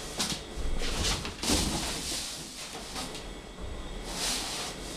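A cardboard box scraping and rustling on a tiled floor as a person crawls into it head first, in several rough bursts, the loudest about a second and a half in.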